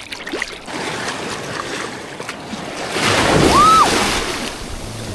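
Surf washing onto a sandy beach, a wave surging loudest about three to four seconds in.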